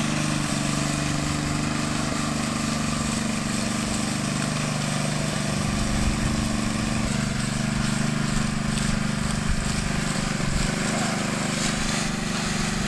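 Power trowel's small petrol engine running steadily as its spinning blades work over fresh concrete.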